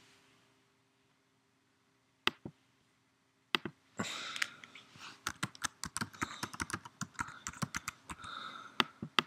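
A few single clicks, then from about four seconds in, rapid typing on a computer keyboard as a password is entered.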